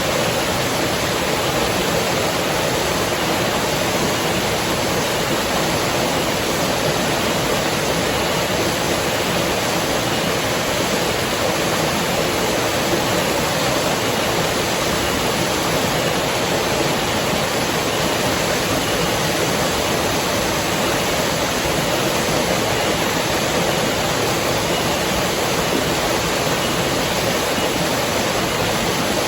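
Steady rushing of river water flowing, an even hiss that does not change.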